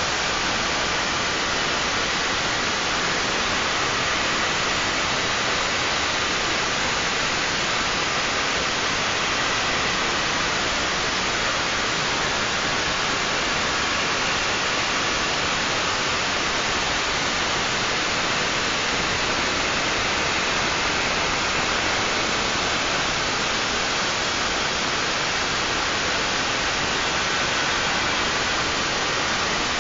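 A CNC milling machine running steadily: an even, hiss-like machine noise, strongest in the upper range, that does not change.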